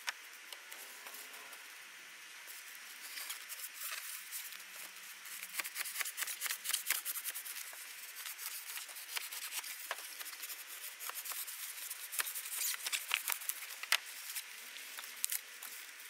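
Serrated knife sawing through thick styrofoam, a dense scratchy rasping of quick cutting strokes, sped up.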